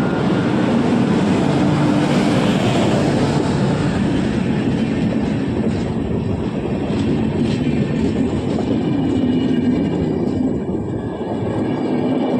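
Passenger coaches of an Indian Railways superfast express train rolling past close to the rails at speed. The wheels make a loud, steady rumble on the track, with a few faint clicks.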